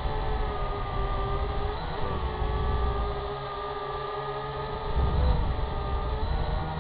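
Syma X8HG quadcopter's motors and propellers whining steadily in flight, the pitch dipping and rising briefly about two seconds and again about five seconds in, over a low rumble that swells around five seconds in.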